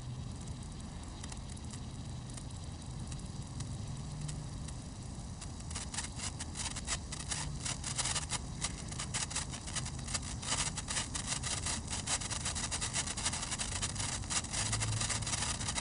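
Senko hanabi (Japanese hanging sparkler): the molten bead at its tip fizzes faintly, then from about six seconds in it crackles with rapid tiny pops as it throws branching sparks, the 'pine-needle' (matsuba) stage of its burn.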